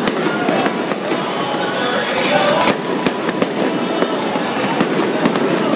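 Aerial fireworks shells bursting overhead: a dense run of sharp cracks and pops.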